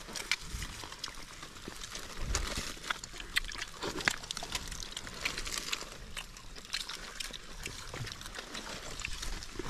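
Scattered clicks, smacks and rustles of several people eating rice and fish with their hands from plastic plates, over a steady hiss.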